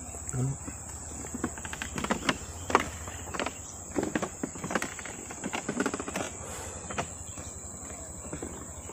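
Insects trilling in one steady high-pitched tone, with irregular light clicks and rustles over it.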